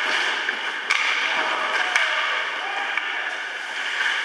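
Ice hockey play in an indoor rink: a steady din of skates on the ice and players shouting, with two sharp stick-and-puck cracks about a second apart.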